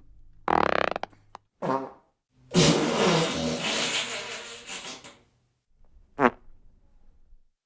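A series of four fart sound effects with short pauses between them. There is a loud pitched one about half a second in and a short one near two seconds. A long, rough one lasts nearly three seconds in the middle, and a brief one comes about six seconds in.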